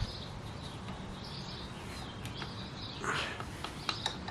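Faint birds chirping over a low steady hum. About three seconds in there is a short rustle, followed by a few light clicks.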